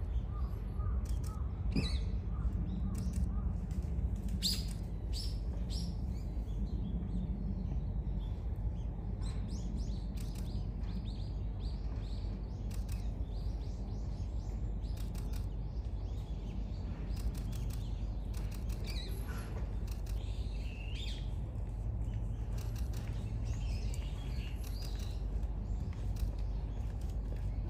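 Small birds chirping in short, scattered calls over a steady low background rumble, with a quick run of repeated notes in the first few seconds.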